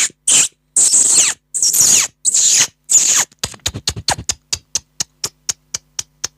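Beatboxer's mouth imitation of a bird: high, squeaky chirps sliding down in pitch, then from about halfway a quick run of short sharp chirps, about four a second, thinning out near the end.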